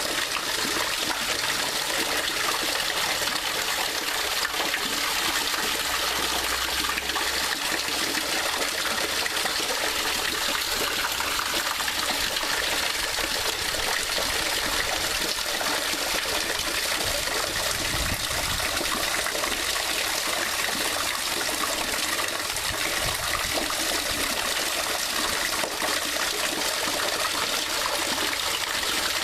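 Running water flowing steadily, an even rushing and trickling that keeps the same level throughout.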